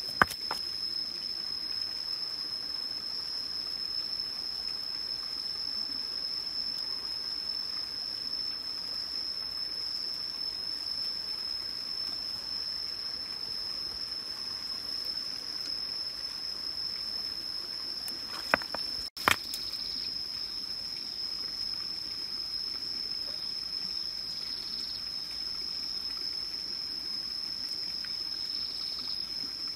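Faint trickle of water in a muddy, rocky crab hole, under a steady high-pitched whine; two sharp clicks about two-thirds of the way through.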